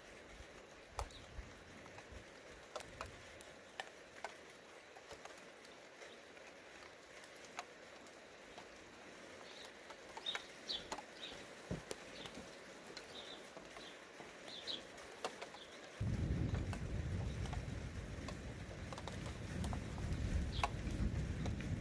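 Scattered raindrops tick and patter sparsely, with a few short bird chirps around the middle. About three-quarters of the way through, a low rumbling noise sets in suddenly and continues.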